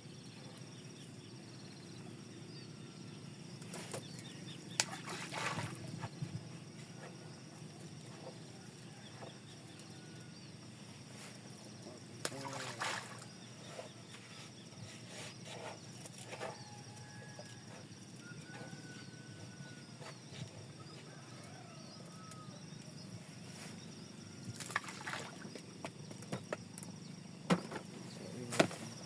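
Quiet outdoor ambience: a steady low hum with a few scattered knocks and clatters, loudest near the end, and faint short chirps.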